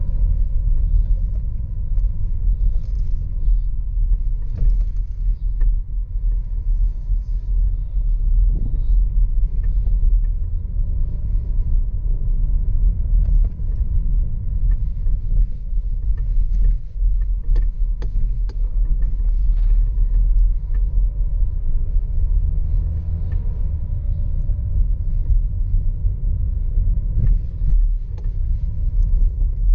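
Cabin noise of a Skoda Karoq on the move: a steady low road rumble with scattered small knocks and rattles from the car's interior. Somewhere in the cabin something is vibrating that the driver cannot locate.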